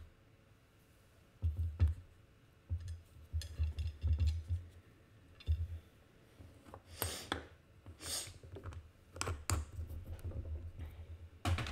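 Hands at work on a desk: dull knocks and bumps, then several sharp clicks and scrapes, as a stuck ink pot lid is tried and will not come open.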